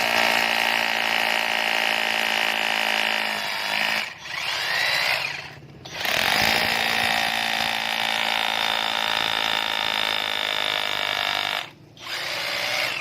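Ken cordless rotary hammer drill running at speed with a steady high whine, let off and restarted several times: it stops about four seconds in, winds up again, pauses briefly, then runs steadily before a short final burst near the end.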